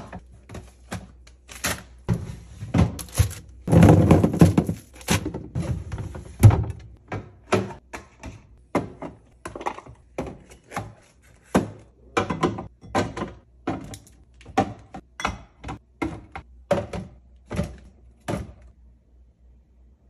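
Groceries being put away in a refrigerator: yogurt cups, cans and plastic containers knocking and clicking as they are set on glass shelves and into clear plastic bins, in a long run of separate taps. A longer, louder stretch of handling noise comes about four seconds in, and the taps stop shortly before the end.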